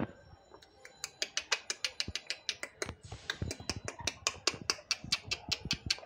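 Rapid run of sharp, dry clicks, several a second, from a pet parakeet perched on a wire cage top; they start about a second in.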